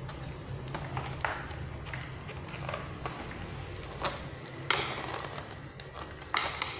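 Hard plastic and metal parts of a stand fan's pole and control housing knocking and clicking as they are handled and fitted together: a few sharp knocks, the loudest a little under five seconds in and another near the end.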